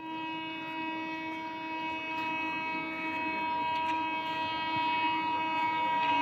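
Horn of an approaching MEMU electric train, one long held note that grows steadily louder as the train nears.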